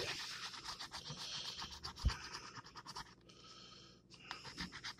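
A coin scratching the coating off a scratch-off lottery ticket in quick, rapid strokes, with a pause of about a second past the middle before the scratching starts again. One low thump about two seconds in.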